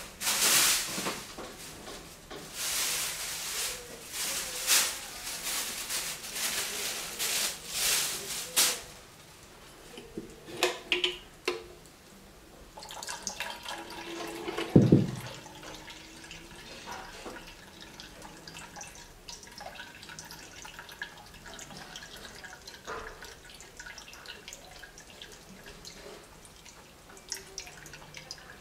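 Blended cucumber being strained through a fine mesh sieve into a plastic jar. It begins with bursts of pouring and splashing over the first nine seconds, then a single knock about fifteen seconds in. After that come soft dripping and small scrapes as a spoon presses the pulp in the sieve.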